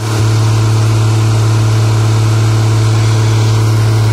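Ingersoll Rand DD-90 tandem road roller's diesel engine running, a loud, steady deep hum that holds unchanged throughout.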